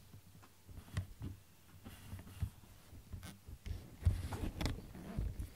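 Close-up rustling and soft irregular thumps from a cat's fur brushing against the camera, with small clicks, loudest about four seconds in.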